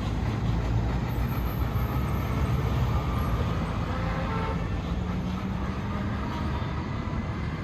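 A steady low mechanical rumble with a faint hum.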